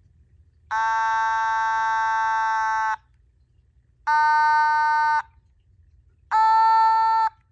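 Otamatone, the Japanese electronic toy synthesizer, set to its mid range, playing three held notes with a nasal, buzzy tone: a long one of about two seconds, then two shorter ones, each stopping cleanly.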